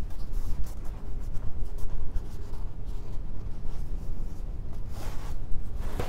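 Oil painting being worked by hand: a run of short, irregular scraping and rubbing strokes of a painting tool on a surface, over a steady low rumble.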